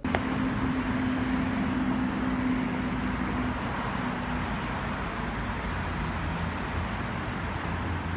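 Road traffic noise: vehicles running past, with a steady low engine hum that fades about halfway through.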